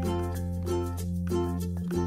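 Background music: a light tune of quickly picked notes over a steady held bass note.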